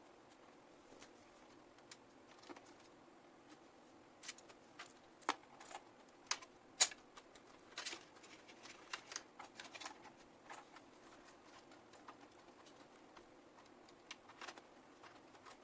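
Irregular small clicks and taps of hands handling computer parts and cables, sparse at first, thickest in the middle, then thinning out again.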